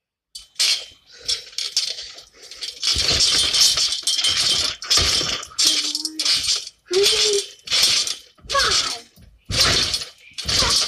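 Garden trampoline being bounced on: its metal springs and mat rattle and creak with each bounce, roughly once a second, with dull thuds of the landings.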